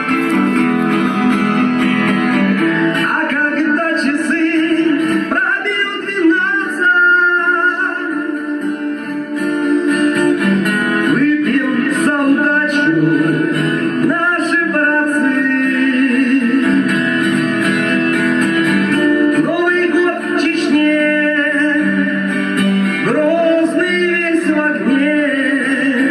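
A song with singing over plucked guitar, played through the built-in speakers of a Samsung VR3711TF CRT television; there is almost no deep bass.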